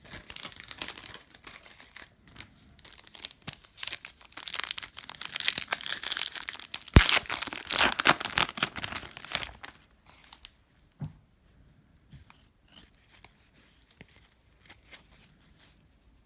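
Plastic wrapper of a trading-card pack being torn open and crinkled for about ten seconds, loudest in the second half, with one sharp snap about seven seconds in. Then only a few faint taps.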